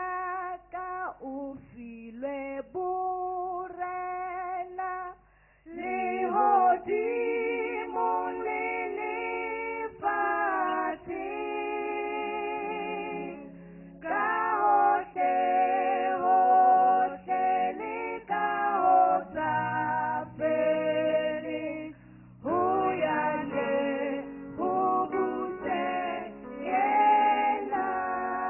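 Four women singing a gospel song together in harmony into handheld microphones, phrase after phrase, with a short break in the singing about five seconds in.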